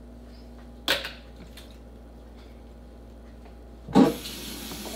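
Quiet room tone broken by a short knock about a second in. Near the end a louder knock, then the steady hiss of a kitchen tap starting to run.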